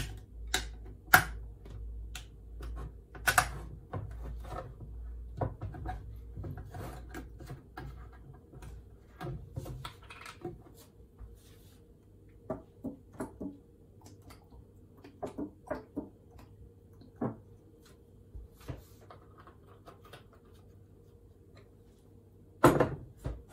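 Handling a metal olive-oil tin while pouring oil into a frying pan: scattered clicks and taps as the cap is opened and the tin tipped, then a louder knock near the end as the tin is set down on the counter. A faint steady hum runs underneath.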